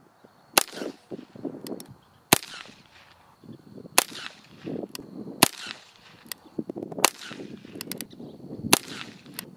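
Heritage Rough Rider single-action .22 rimfire revolver with a 16-inch barrel fired six times, slow aimed shots, one sharp crack about every second and a half.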